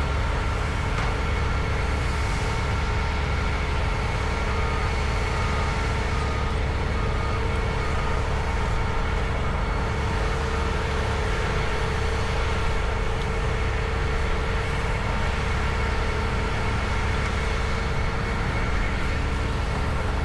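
Tractors and land-clearing machinery running steadily: a constant low rumble with a few steady whining tones over it. A run of faint short beeps comes a few seconds in.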